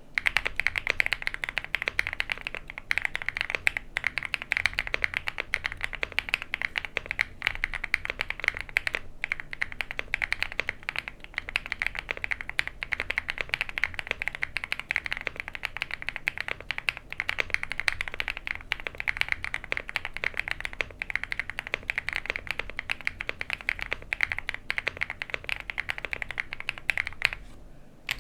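VGN VXE75 V2 75% mechanical keyboard being typed on quickly, a dense, continuous stream of keystroke clacks with a brief pause near the end.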